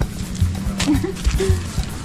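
Background music with a steady beat of about two pulses a second.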